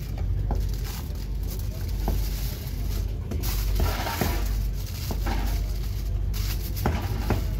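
Aluminium foil crinkling and crackling in short bursts as hands fold and crimp the edges of a foil packet, over a steady low hum.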